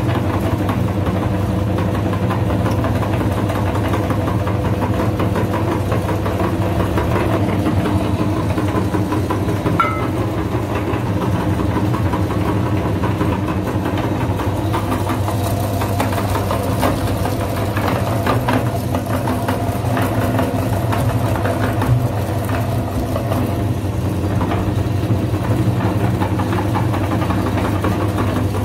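Electric meat grinder running with a steady motor hum while it grinds soap into crumbs, with scattered crackles.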